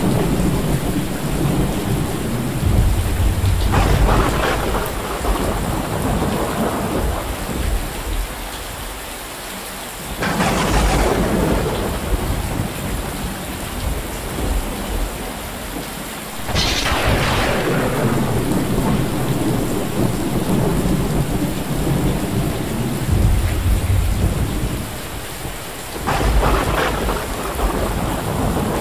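Steady rain falling on corrugated metal roofs, with four claps of thunder, each a sudden crack that rolls off into a long rumble.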